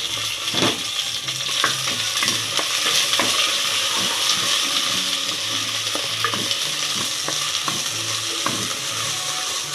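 Okra and eggplant pieces sizzling in hot groundnut oil in a clay pot as a spoon stirs them, with a steady hiss and irregular scraping knocks of the spoon against the pot.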